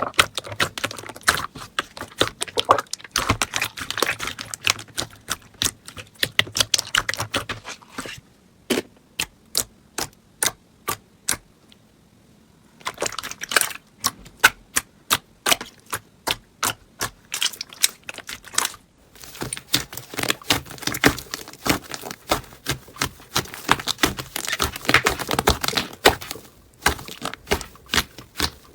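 Slime being pressed and squished by hand, making crisp clicks and pops from trapped air pockets. In the middle the clicks come evenly, about two or three a second; near the end they run together into dense crackling.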